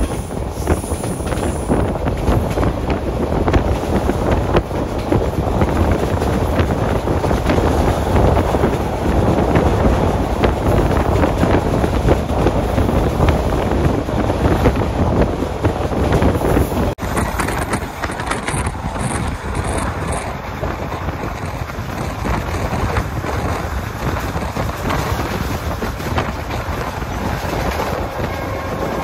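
SE9 passenger train running at speed: a steady rumble of wheels on the rails mixed with wind buffeting the microphone. About two thirds of the way through the sound changes abruptly to a slightly quieter, less windy rumble.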